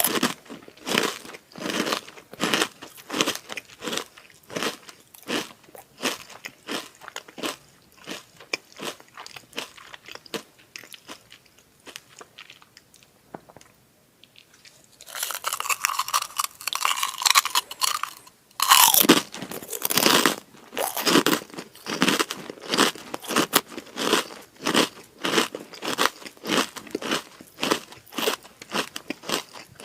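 Krupuk (Indonesian crispy crackers) being bitten and chewed close to the microphone: rapid crisp crunches, several a second. The crunching fades to a lull about halfway through, then comes back with a few seconds of denser crackle and fresh loud bites.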